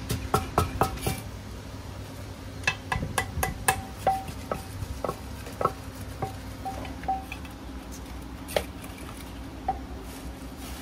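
Wooden pestle pounding papaya salad in a clay mortar: a quick run of knocks in the first second, another cluster about three seconds in, then sparser knocks, several with a short ringing note. A steady low hum runs underneath.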